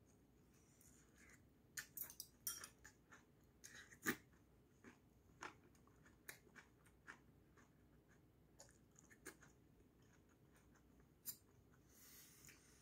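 Close-up eating sounds: chewing with wet lip smacks and sharp clicks of a metal fork and chopsticks on a plate as grilled fish is picked apart. The clicks come thick and fast for the first half, then thin out.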